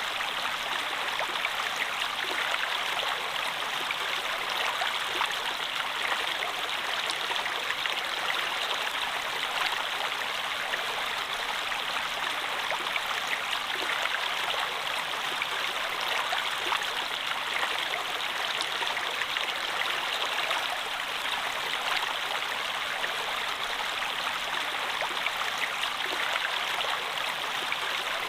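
Running water flowing steadily, an even rush with faint small splashes scattered through it.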